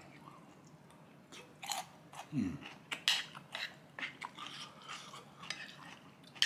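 Close-miked eating sounds: a man chewing a spoonful of curry, with wet mouth clicks and smacks and a spoon against the dish. The sounds start about a second and a half in and come as a run of short irregular clicks.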